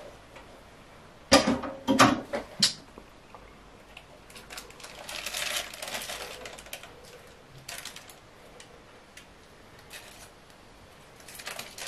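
Clatter of metal cake tins being handled to free barbecue-baked sponges. Three loud sharp knocks come a little over a second in, then a few seconds of scraping noise, then light scattered clicks.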